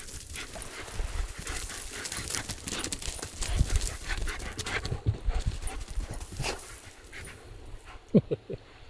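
German shepherd dog eating a treat: quick wet chewing and smacking clicks with panting. A brief, louder pitched vocal sound comes a little after eight seconds.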